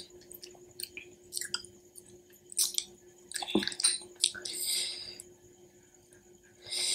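Close-up eating sounds of pani puri: small sharp crackles as crisp puri shells are poked open by a fingertip, with wet chewing and squishing in between. The crackles are scattered at first and come thicker about halfway through.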